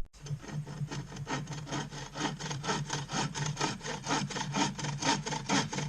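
Hand saw cutting through old pallet wood with quick, even back-and-forth strokes.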